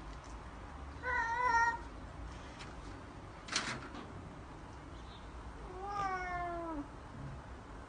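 Domestic cats yowling in a standoff: a short wavering yowl about a second in, a brief sharp burst of noise around the middle, and a longer yowl that slides down in pitch near the end.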